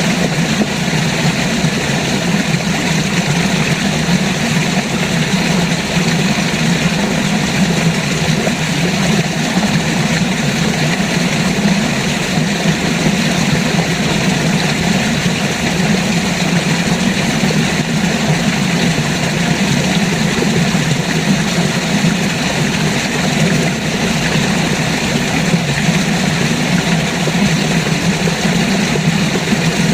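River water rushing steadily: a constant low rumble with an even hiss over it, never pausing or changing.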